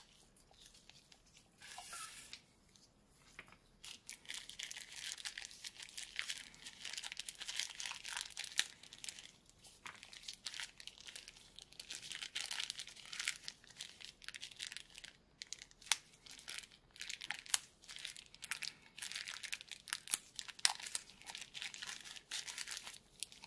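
Packaging crinkling and tearing as an unboxed accessory is unwrapped and handled: a short burst about two seconds in, then near-continuous crinkling with scattered small clicks from about four seconds in.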